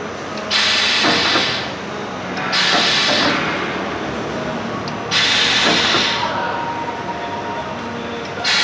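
Gabion wire-mesh machine running with a steady mechanical din. Four times, about two to three seconds apart, a loud rush of noise starts sharply and lasts about a second as the machine cycles.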